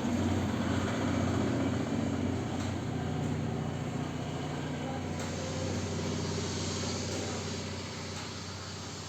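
A motor running with a steady low hum over a background of even noise.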